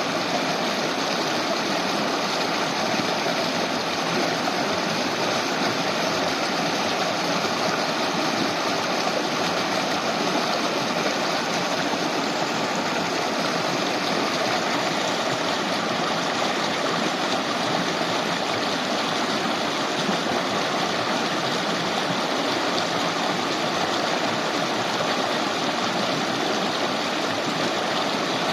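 A shallow river running over stones in a steady, even rush.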